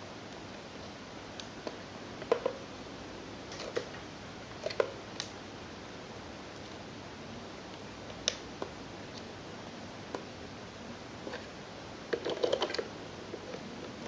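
Light clicks and taps of small plastic model-train parts being handled at a workbench, scattered every second or two, with a quick rattle of clicks near the end, over a steady faint hiss.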